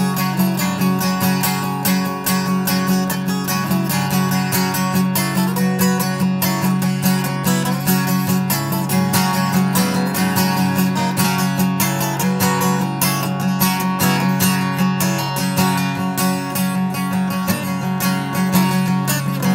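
Acoustic guitar strummed in a quick, steady rhythm, an instrumental passage with no singing.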